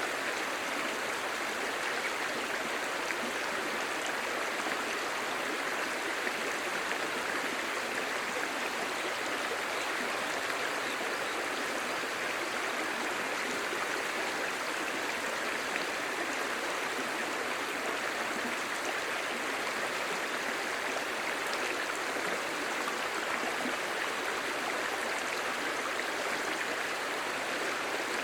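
Clear shallow stream babbling steadily over stones, an even rush of running water.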